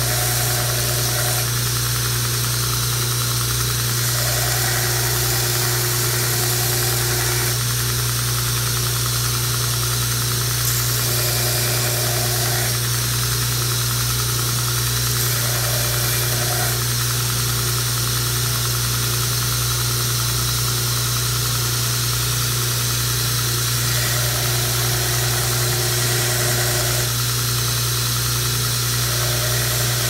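Belt grinder running with a steady motor hum while a knife's handle scales are ground against the abrasive belt at the contact wheel. A higher grinding note comes and goes every few seconds as the knife is worked on the belt.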